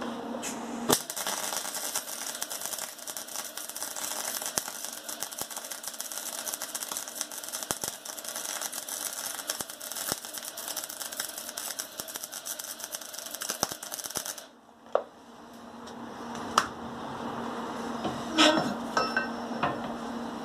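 Electric arc welding on the steel burner pipe: the arc crackles and spits steadily for about thirteen seconds, then stops suddenly. A few sharp metallic clinks and knocks follow near the end, over a steady hum.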